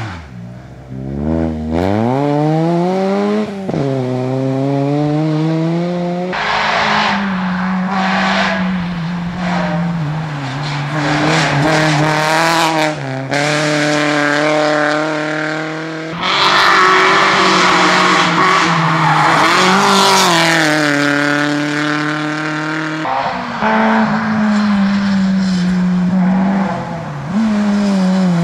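Rally cars driven flat out, one after another. Their engines rev high and drop sharply on gear changes and lifts.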